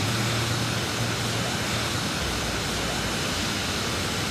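Molten steel pouring from an open-hearth furnace into a ladle: a steady rushing noise with a low hum underneath that drops to a deeper rumble about halfway through.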